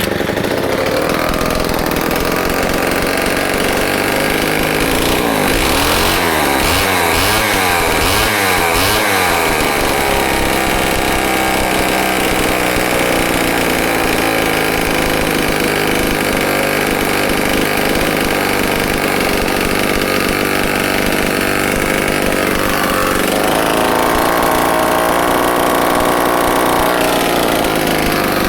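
Homelite XL-12 chainsaw's single-cylinder two-stroke engine running loud on a cold morning. Its speed rises and falls repeatedly for a few seconds starting about six seconds in, then holds steady, with a shift in pitch a little past twenty seconds.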